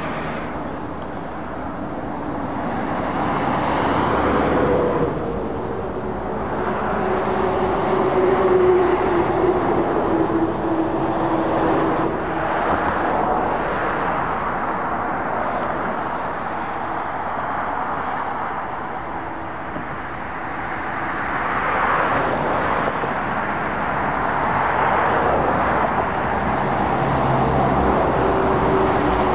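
Steady road traffic of heavy lorries and cars passing on a busy road, with engine and tyre noise that swells and fades as vehicles go by. A droning tone slides down in pitch about four seconds in.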